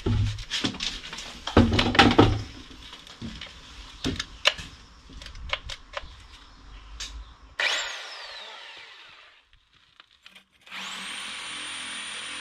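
An electric power tool at work on a building site. First come knocks and two short bursts of the motor, then scattered clicks. About seven and a half seconds in, a tool cuts in with a whine that falls away as it runs down, and near the end a motor starts up with a rising whine and then runs steadily.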